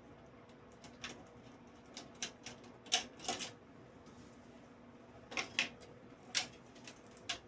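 Scattered sharp plastic clicks and short rattles of cables and connectors being handled inside a PC case, the loudest about three seconds in, over a faint steady hum.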